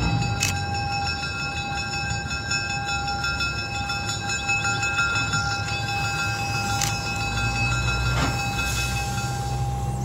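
EMD SW9 switcher locomotive's V12 567 diesel engine running at low throttle as the locomotive and its coaches ease to a stop. A steady high-pitched whine rides over the engine, with sharp clanks about half a second, seven seconds and eight seconds in.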